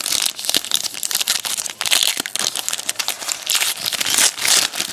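Wrapper of a 2011 Elite Extra Edition baseball card pack being torn open and crumpled by hand: a dense, continuous run of crinkling and crackling.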